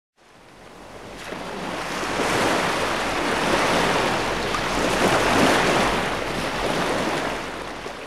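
Rushing noise of an animated logo's intro sound effect, swelling up over the first two seconds, holding steady, then dying away near the end.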